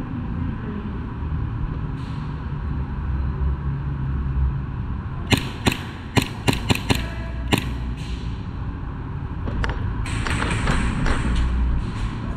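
Novritsch SSP18 airsoft pistol, running on HPA (high-pressure air), firing single shots: about seven sharp cracks over two seconds starting about five seconds in, then a denser spell of clicks and rattling near the end. A steady low rumble runs underneath.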